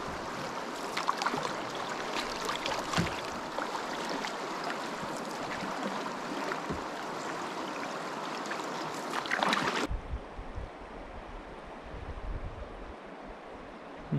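Moving river water: a steady wash full of small splashes and crackles. About ten seconds in it cuts abruptly to a quieter, duller steady wash with wind rumbling on the microphone.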